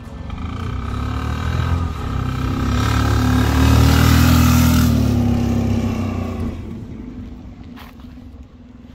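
HDT M1030M1 military motorcycle's single-cylinder diesel engine under power, approaching, passing close by about four seconds in, then fading as it rides away.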